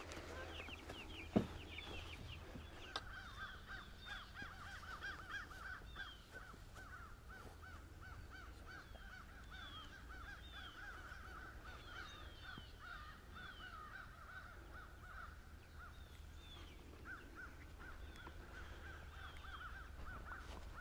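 A flock of meat chickens cheeping and chirping on and on in many short, quick notes, with a single sharp knock about a second and a half in.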